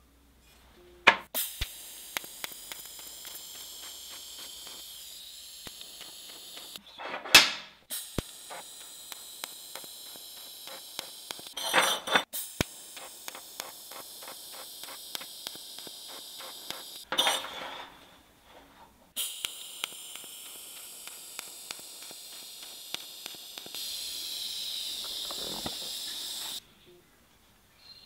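TIG welding arc, likely from an Arccaptain 200P TIG welder, hissing steadily in three long runs with short breaks between them. Sharp crackles come as the arc is struck and restarted.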